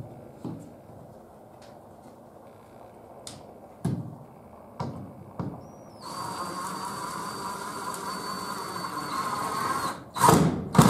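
Ryobi cordless driver running steadily for about four seconds with a thin whine as it bores into a small pine block. Before it there are a few wooden knocks of blocks being handled, and after it a couple of loud knocks near the end.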